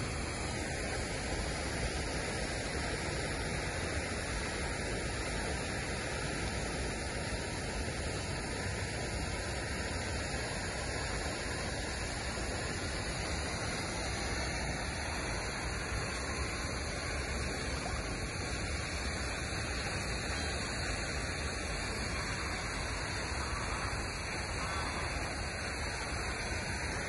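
Fountain water splashing in a steady, unbroken rush.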